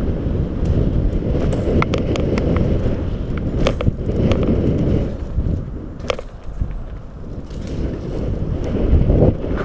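Wind buffeting a GoPro's microphone as a mountain bike descends a dirt trail at speed, with tyre rumble and scattered sharp clicks and rattles from the bike over bumps.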